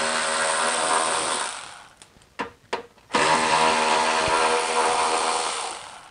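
Cordless electric ratchet running in two runs of about two seconds each, spinning out 8 mm fasteners from a plastic underbody shield. The motor whine winds down at the end of each run, with a couple of clicks between them.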